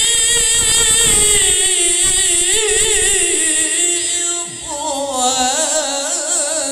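A male qari's Qur'an recitation (tilawah), sung into a microphone and amplified over a PA system: one long melismatic phrase, the voice wavering in quick ornamental turns and sinking slowly in pitch.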